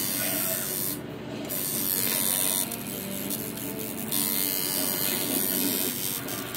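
Electric tattoo machine buzzing steadily as the needle works into the skin, dropping off briefly about a second in and running quieter for a while around three to four seconds in.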